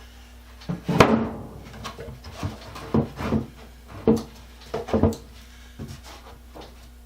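Wooden knocks and thumps on a wooden carpenter's tool box being handled: one sharp, loud knock about a second in, then about half a dozen lighter knocks spread irregularly through the rest.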